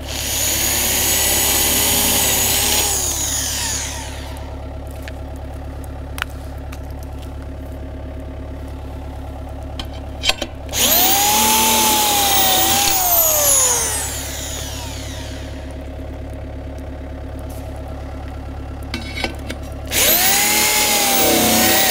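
Handheld power drill boring a bolt hole, run in three bursts of a few seconds each, its whine rising as it spins up and dropping as it slows, over a steady engine hum.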